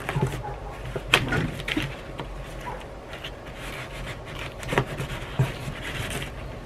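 Scissors slicing through packing tape along the seam of a large cardboard box: scraping and tearing of tape and cardboard, broken by a few sharp clicks.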